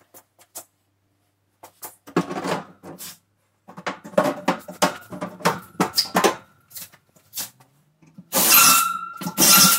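White wire closet shelf clinking and knocking as it is handled and set into its wall clips. Near the end a Ryobi cordless drill drives a screw through the shelf's support bracket in two short runs.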